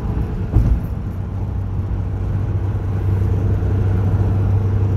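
Cabin noise of a Nissan Caravan 4x4 cruising at freeway speed: a steady low drone from its TD27 2.7-litre four-cylinder turbo-diesel and the road. There is one brief thump about half a second in.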